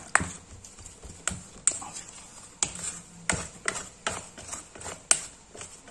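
Green plastic scoop pressing and scraping bait dough in a stainless steel bowl, with sharp, irregular knocks and clicks against the bowl.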